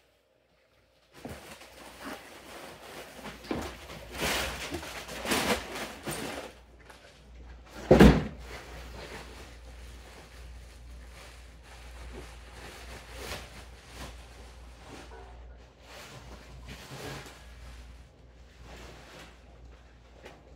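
Rustling and handling noises with scattered knocks as an aftermarket exhaust can is unpacked, with one sharp, loud thump about eight seconds in.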